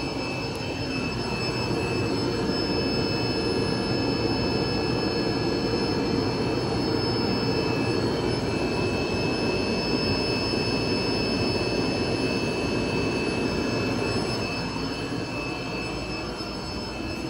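Steady rushing and bubbling of aquarium aeration and filtration: air bubbling through sponge filters in the tanks, with a faint steady high whine over it. Louder through the middle, easing off near the end.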